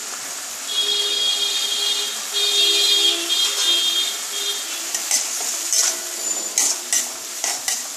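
Tomato pieces and masala paste sizzling in an aluminium kadai, with a metal spatula scraping and stirring against the pan in short strokes over the second half. In the first half a steady pitched tone sounds three times over the sizzle.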